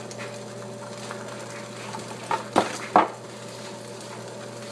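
Three sharp clattering knocks of kitchenware, about two and a half to three seconds in, over a steady electrical hum while eggs fry in a nonstick pan.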